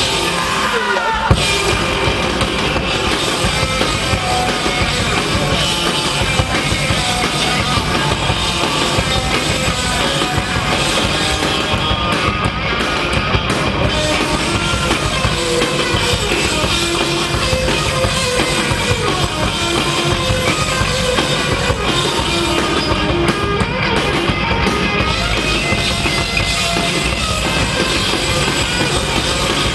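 Live rock band playing: electric guitars over a drum kit, continuous throughout.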